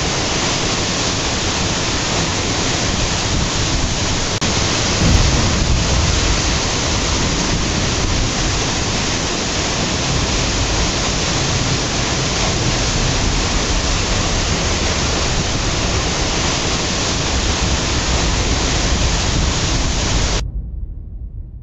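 Steady, loud rushing of a mountain waterfall and its whitewater cascade, falling water and spray close by. It cuts off suddenly near the end.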